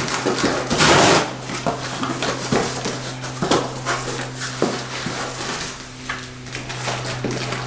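Rummaging in a small cardboard box of roof-rack parts: cardboard and packaging rustling, with a loud rustle about a second in and scattered small knocks and clicks as the parts are handled. A steady low hum runs underneath.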